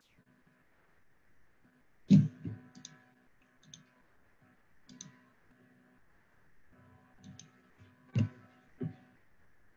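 Scattered clicks and knocks from handling a computer on a desk, about seven in all, the loudest about two seconds in and near the end, over a faint steady hum.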